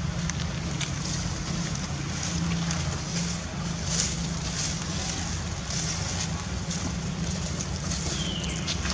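Steady outdoor background rumble and hiss, with scattered light clicks and rustles. A short falling squeak comes near the end.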